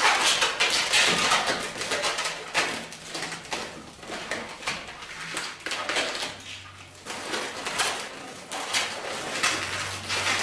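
Latex 260 modelling balloons rubbing against each other in irregular scrapes as they are twisted and fastened by hand.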